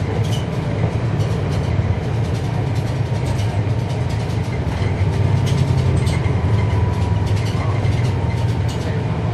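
Transit bus ride as heard on board a 2011 NABI 40-SFW: the Cummins ISL9 diesel engine runs with a steady low rumble, under road noise and a scatter of interior rattles and clicks.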